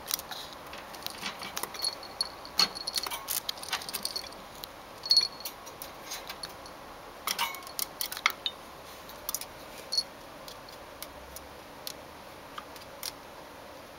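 A ferret tugging a hanging toy's plastic ring against the wire bars of its cage door: irregular clicks and rattles, with brief jingles from a small bell on its collar. The clicks come in quick clusters and thin out after about ten seconds.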